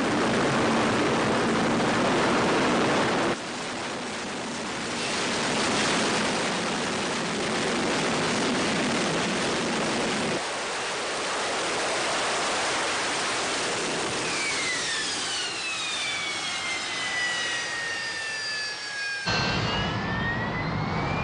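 Harrier jump jet's Rolls-Royce Pegasus turbofan running loud, a dense rush of jet noise that changes abruptly three times. Over the last few seconds a high whine falls in pitch, then rises again near the end.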